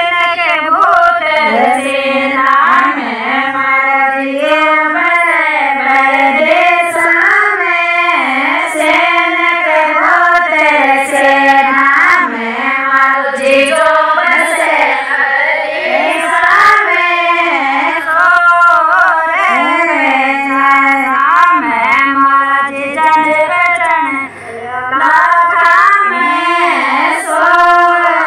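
Women's voices singing a Rajasthani Shekhawati folk song, a jija geet, in a flowing, ornamented melody with a short break between lines about 24 seconds in.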